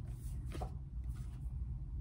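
Faint rustling of paper and card as a postcard is taken out of a cardboard subscription box, with a soft tick a little over half a second in, over a low steady hum.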